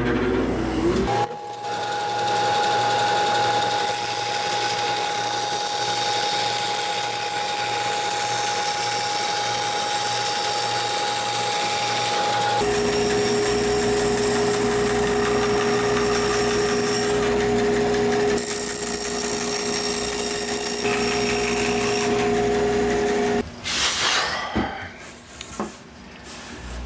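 Woodworking power tools running steadily in several short cut-together segments, each with a constant motor whine whose pitch jumps at each cut; the running sound breaks off about 23 seconds in, followed by a few seconds of quieter, uneven handling noise.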